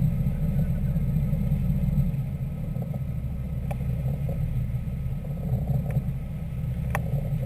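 Sportfishing boat's engines running with a steady low rumble, with a couple of light clicks about midway and near the end.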